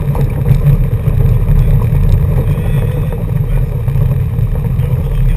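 Car driving on a gravel road, heard from inside the cabin: a steady, loud low rumble of engine and tyres on gravel.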